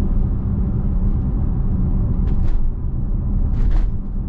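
Road and tyre rumble heard inside the cabin of a Tesla electric car cruising at about 38 mph, with two brief hisses about two and a half and three and a half seconds in.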